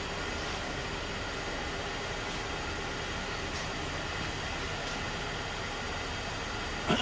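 Comec ACF200 head surfacer running steadily, taking a cleanup pass across a Rambler 327 cylinder head at a slowed feed rate. There is a brief sharp sound just before the end.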